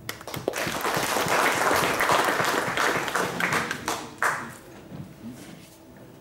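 Audience applauding, dying away after about four seconds to a few scattered claps.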